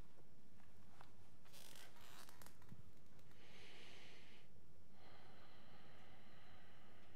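Quiet room tone with soft breaths picked up close by a headset microphone, the clearest breath about four seconds in.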